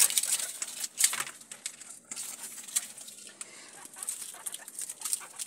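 A group of guinea pigs scrabbling and feeding among dry corn husks: irregular rustling, crackling and small clicks, loudest at the start and about a second in.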